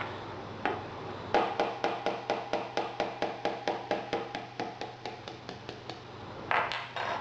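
A katana takedown hammer tapping a small punch to drive the bamboo retaining pin (mekugi) out of the sword's handle. One tap, then a quick even run of about twenty light taps, about four a second, each with a short ring and slowly getting fainter. A brief louder noise comes near the end.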